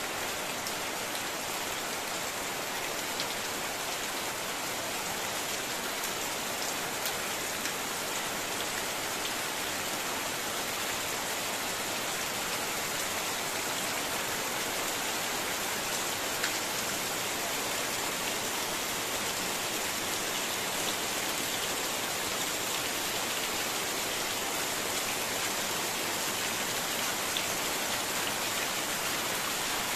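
Heavy rain falling steadily on a corrugated metal roof, the car beside it and the muddy ground, with water pouring off the roof edge. A few sharper drop ticks stand out from the even hiss.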